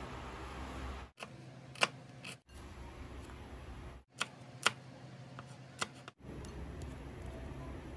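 Knife chopping green chili on a wooden cutting board: about six sharp, separate knocks of the blade hitting the board, over a low steady hum.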